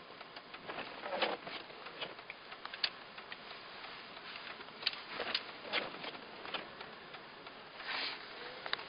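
Wet snow striking the car's windshield in irregular light ticks and taps, heard from inside the cabin over a steady faint hiss.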